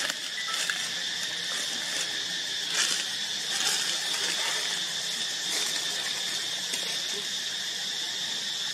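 Steady insect chorus, a constant high-pitched buzz, with a few faint clicks partway through.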